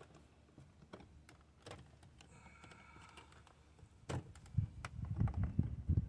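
Small plastic clicks and taps as a plastic door-trim piece is worked into place, with louder knocks and handling thumps from about four seconds in.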